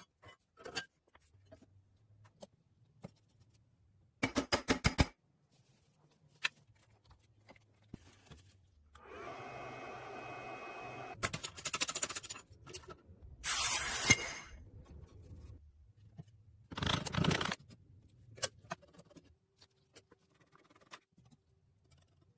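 Intermittent hand-work on rusty metal parts: a quick rattle of clicks, a steady hiss lasting about two seconds, then several short scraping bursts.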